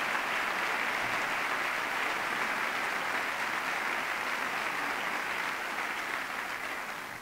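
A large audience applauding, a steady even clatter of many hands clapping that dies away near the end.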